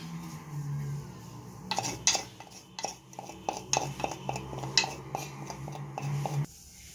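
Metal spoon clinking and scraping as grated ginger is scooped out of a wooden grinder and knocked into an aluminium pot: a quick run of clicks and knocks from about two seconds in. A low steady hum underneath cuts off near the end.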